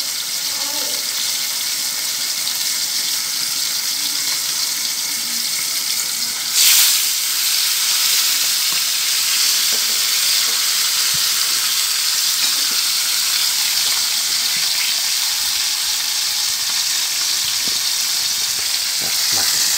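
Whole pomfret frying in hot oil in a pan, a steady sizzle. About six and a half seconds in the sizzle surges loudly and then settles a little louder than before, as the second fish goes into the oil.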